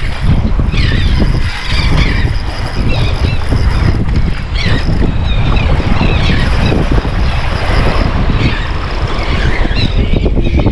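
Steady low rumbling wind buffeting the microphone outdoors by the water, with a few short higher-pitched sounds scattered through it.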